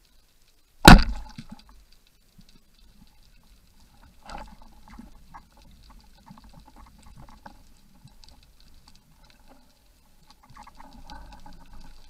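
Saber 90 band speargun fired underwater: one sharp crack about a second in as the rubber bands release and the shaft shoots out. A fainter knock follows about three seconds later, with faint scattered clicking around it.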